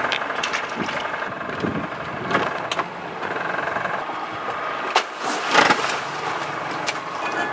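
Boat engine idling steadily, with a splash about five and a half seconds in as a stone crab trap is dropped into the water.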